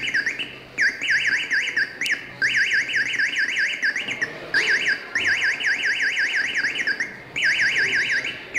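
Motion-sensor alarm tone from a small speaker driven by an FPGA board: a fast up-and-down warbling beep, about five or six sweeps a second. It sounds in several bursts with short breaks, each set off when the sensor detects movement.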